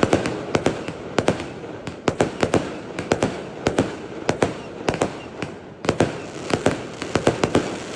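Fireworks going off in a rapid, irregular run of sharp bangs, several a second, each with a short echoing tail, over a steady crackling haze.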